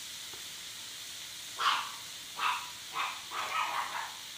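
A dog barks four times in quick succession, starting about one and a half seconds in, over a steady sizzling hiss from food cooking on a tabletop electric grill and hot pot.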